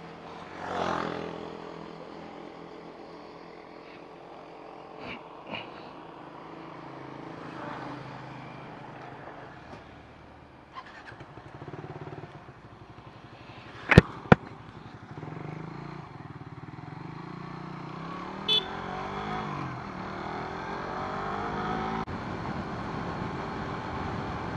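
Motorcycle engine running as the bike rides along, its pitch rising and falling with speed. Two sharp knocks come close together about halfway through.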